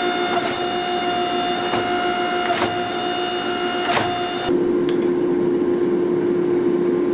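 Steady machine hum with a few sharp metal strikes, like hammer blows on hot steel, in the first four seconds. About four and a half seconds in the higher sound drops away and the low hum runs on alone.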